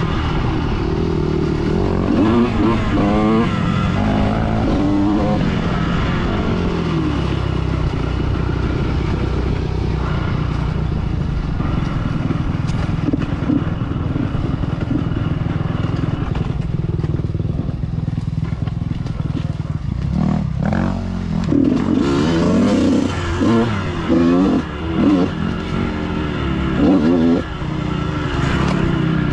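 Dirt bike engine running under load, revving up and down in quick bursts near the start and again through the last third as the throttle is opened and closed, and running steadier in between.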